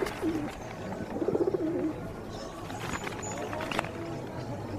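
Birds giving low, warbling cooing calls in two short phrases, near the start and again just over a second in, over background music.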